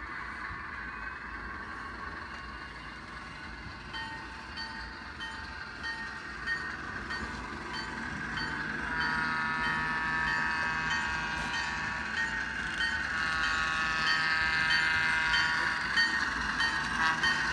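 Sound decoder of an HO scale ALCO S-4 model playing its diesel locomotive sound through the model's small speaker, growing steadily louder as the locomotive approaches. From about four seconds in, a locomotive bell rings about twice a second.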